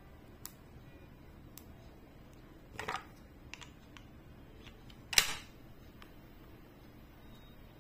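Small plastic clicks and brief crinkles from a lipstick tube and its plastic wrapping being handled and opened. A single sharp click about five seconds in is the loudest sound.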